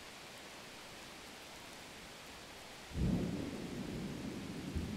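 Spring rolls deep-frying in hot oil: a steady sizzle, then from about three seconds in a louder, deeper bubbling rumble.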